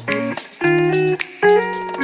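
Background music: plucked guitar chords struck about every half second.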